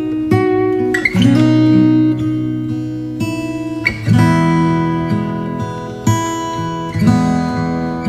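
Background music: acoustic guitar strumming chords, with a new chord struck every second or two.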